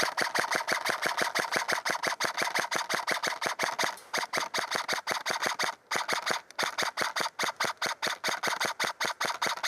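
Airsoft gun firing on full auto: a rapid, even stream of sharp shots, about eight a second, with one short break a little past halfway.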